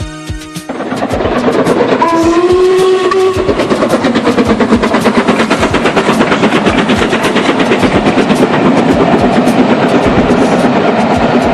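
A train running with a fast, steady clatter, its whistle sounding once for about a second and a half around two seconds in. Music ends just before the clatter starts.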